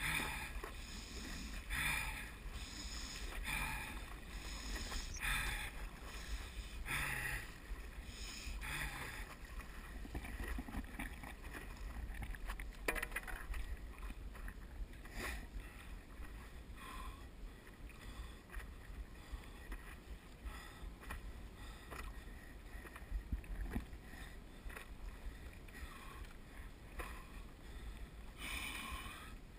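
Stand-up paddle blade splashing into and pulling through the water, about six strokes roughly every 1.7 seconds, which stop about nine seconds in as the board glides with faint irregular water sounds. There is another splash near the end, with a steady low rumble underneath.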